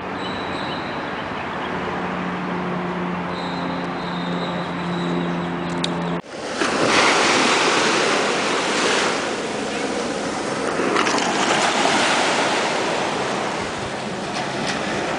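Steady street traffic hum with an engine's drone. About six seconds in it cuts to small waves breaking and washing over a sandy beach, the surf surging every couple of seconds, with wind on the microphone.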